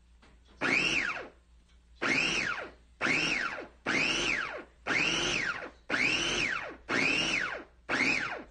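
Electric meat grinder (bowl chopper with stainless steel blades) run in short pulses eight times, about once a second, chopping meat: each pulse the motor whines up quickly in pitch and winds down as it is let go.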